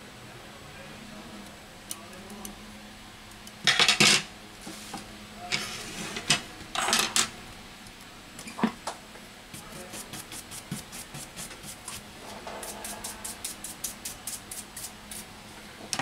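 A disassembled smartphone's metal frame being handled and set down on a repair mat: two loud scraping clatters about four and seven seconds in, a few knocks, then runs of quick light clicks, several a second, in the second half.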